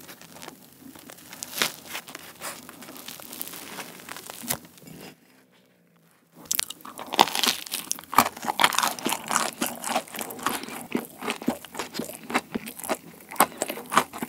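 A fried soboro bun filled with sweet potato being torn open close to the microphone, its crumbly fried crust crackling. After a brief pause about six seconds in come loud crunching bites and chewing of the bun.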